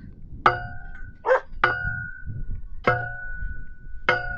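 A post being driven into the ground with repeated hammer blows, four strikes about a second apart, each ringing with a metallic tone that dies away. A short rough sound comes between the first two blows.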